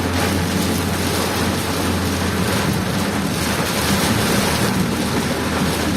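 Heavy rain and wind noise over a vehicle's steady engine and road rumble while driving in a downpour.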